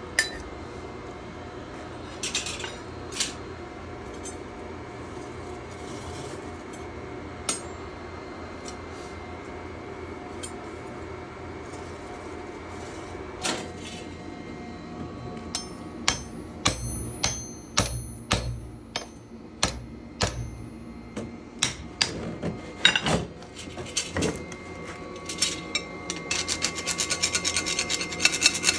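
Steel being worked with hand tools over a steady workshop hum. There are scattered metal clinks and knocks, and a run of them with a high ringing tone in the middle. Near the end come rapid scraping strokes, like filing on a steel blade.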